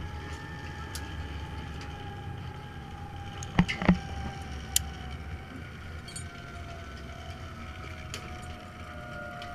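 Steady wind rumble on the microphone with a faint high whine slowly falling in pitch. About midway come two sharp metallic clicks close together and a third about a second later: carabiners and the zip line trolley being clipped onto the harness.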